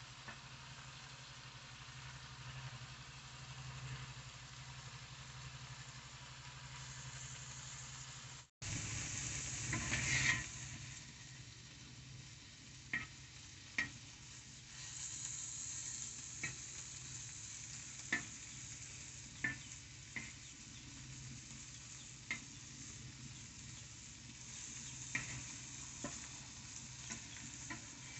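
Shrimp frying in oil in a black iron pan, a faint steady sizzle, stirred with a metal spatula. Sharp ticks come every second or two, and the sound drops out briefly about eight seconds in.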